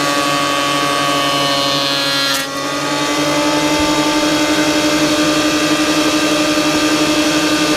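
Einhell TC-SP 204 planer thicknesser running with the dust extractor on: a loud, steady motor whine of several held tones, dipping briefly with a click about two and a half seconds in.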